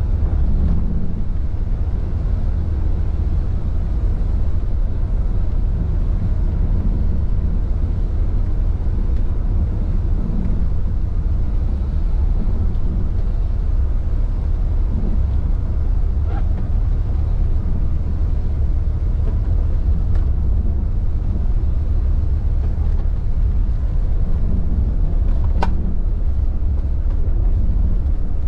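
Intercity coach driving at highway speed, heard from inside the cabin: a steady low rumble of engine and road, with a faint click about sixteen seconds in and another near the end.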